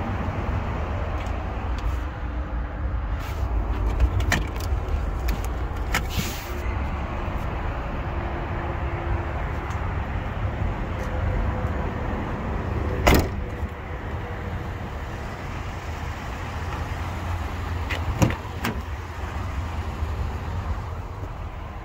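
Steady low outdoor rumble with a few sharp knocks and clicks from handling, the loudest about 13 seconds in.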